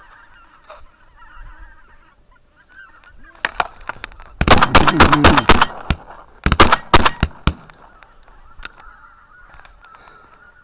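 Geese honking: two loud bursts of rapid honks, about four and a half and six and a half seconds in, over a fainter steady honking from more distant geese.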